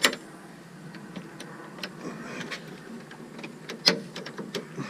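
Sharp clicks and light knocks from the VW Eurovan rear hatch latch mechanism being handled and worked by hand. There are two loud clicks, one at the start and one about four seconds in, with lighter ticks between.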